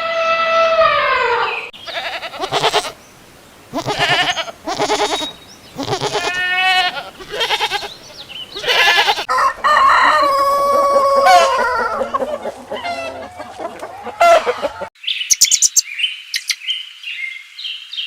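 Chickens clucking with long rooster crows near the start and again about ten seconds in. About fifteen seconds in it switches abruptly to small birds chirping.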